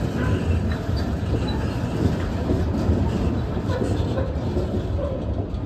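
Freight train of covered sliding-wall wagons rolling past, its wheels clattering steadily over the track.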